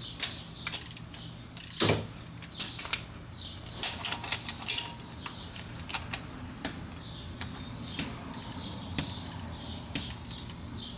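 Ratchet wrench clicking in short runs and single clicks as bolts are tightened in a torque sequence.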